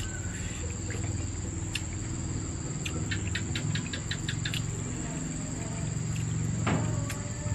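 Crickets chirring in one steady, high tone, with a quick run of about eight clicks a few seconds in and a single thump near the end.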